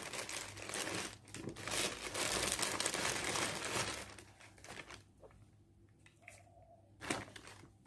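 Packaging from a new laptop's charger and accessories crinkling and rustling as it is handled for about four seconds. It then quiets to a few faint handling clicks, with a short rustle near the end.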